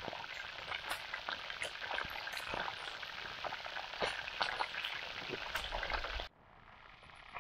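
Fish sizzling and crackling as it cooks over a campfire, with frequent sharp pops. The sound cuts off suddenly near the end, leaving a quieter background.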